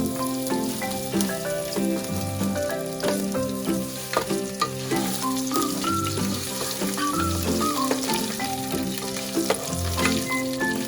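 Food frying and sizzling in a pan, with a spatula stirring and scraping against it, under background music with a recurring bass note.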